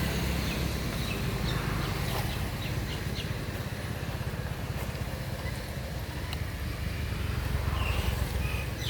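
A steady low rumble with faint, short high chirps of small birds scattered through it.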